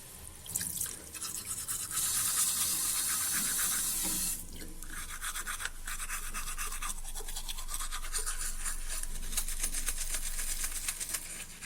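Rapid, scratchy scrubbing strokes, with a steadier hiss for a couple of seconds near the start.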